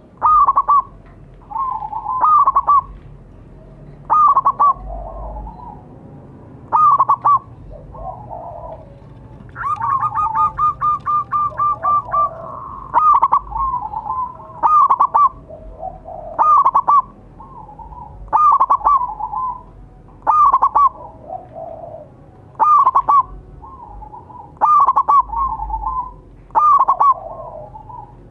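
Zebra dove (perkutut) cooing over and over, a loud phrase about every two seconds, with a quick run of short, evenly spaced notes about ten seconds in. Softer coos sit between the loud phrases.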